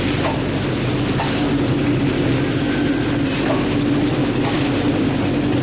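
An automatic powder conveying, weighing and packaging machine running: a steady motor hum with faint clicks of the mechanism about once a second.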